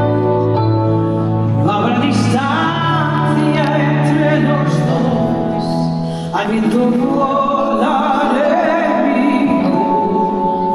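Live band music with singing: sustained chords under a sung vocal line.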